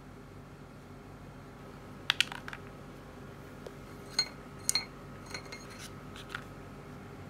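Light taps and clicks of a handmade paper die being rolled and handled on a wooden table, with a few clinks that ring briefly against the ceramic plate and chopsticks beside it. A cluster comes about two seconds in, then more scattered taps between about four and six and a half seconds.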